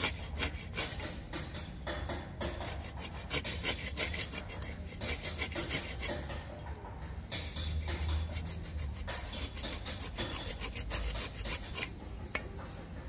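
Small hand pruning saw rasping back and forth in short strokes through a living ficus branch, with a brief pause midway. It is cutting a V-notch so the branch can be bent downward.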